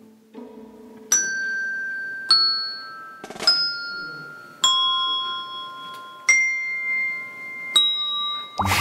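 A set of colour-coded tuned desk bells struck one at a time, six ringing notes about a second apart, each sustaining until the next, picking out a slow melody.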